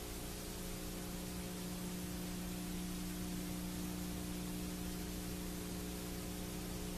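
Steady hiss with a low electrical hum made of several fixed tones, unchanging throughout: the background noise of the recording or transfer itself, with no programme sound over it.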